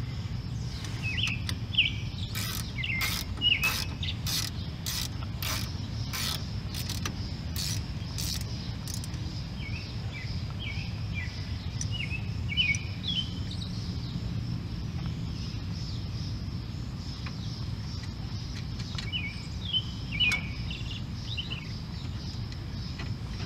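Ratchet wrench clicking in an even run, about two clicks a second, as a brake caliper bolt is run in; the clicking stops about nine seconds in. Birds chirp in the background.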